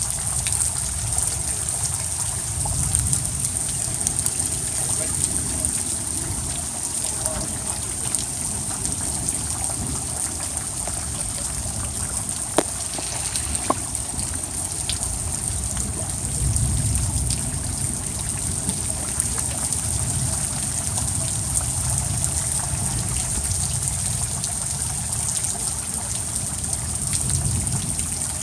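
Steady rush and trickle of flowing floodwater, with two sharp clicks about halfway through.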